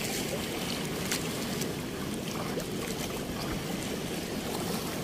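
Water rushing steadily, an even continuous noise with a few faint ticks, as from flow through a weir's sluice gate.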